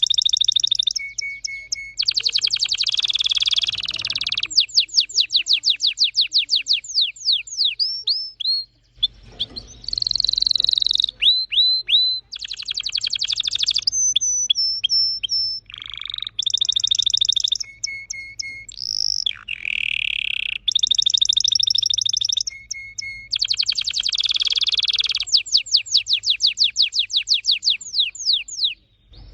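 Red factor canary singing a long, fast song of rapid rattling trills, runs of quick falling whistled sweeps and short chirps, changing phrase every second or two with brief pauses between.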